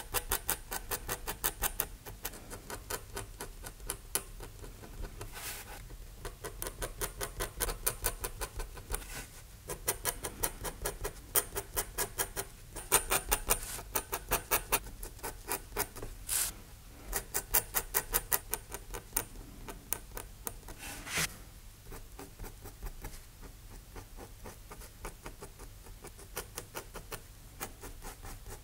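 Steel mapping-pen nib scratching across paper in quick, short hatching strokes, several a second, with brief pauses now and then.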